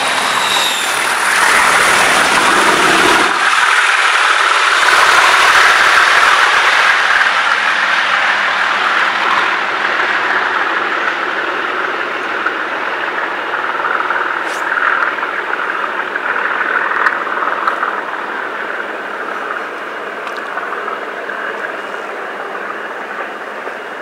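Class 37 diesel locomotive 37607 running hard at full power, its English Electric V12 engine thrashing as it passes and pulls away. The heavy rumble of the passing train cuts off about three or four seconds in, and the engine's sound then fades gradually as the locomotive draws into the distance.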